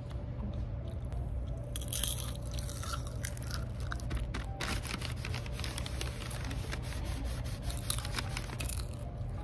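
Close-up crunching of popcorn being bitten and chewed, in many short sharp crunches over a low steady hum.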